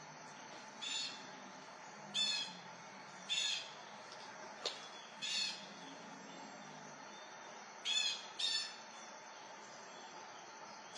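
A series of short, high-pitched chirping animal calls, seven in about eight seconds, over a steady hiss. A single sharp click comes about halfway.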